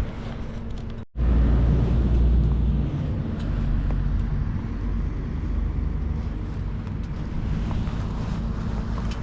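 2022 Yamaha MT-09 SP's inline three-cylinder engine running on the road. It drops out for a moment about a second in, is louder for the next couple of seconds, then settles to a steady run.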